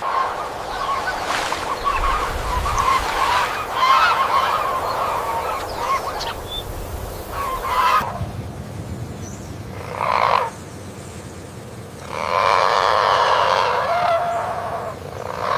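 Cranes calling: a busy, overlapping honking chatter from several birds that cuts off abruptly about halfway through, followed by a short call and then a longer, rougher stretch of calling near the end.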